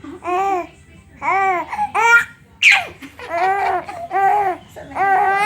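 A young child laughing hard in a run of about eight short, high-pitched calls that each rise and fall in pitch.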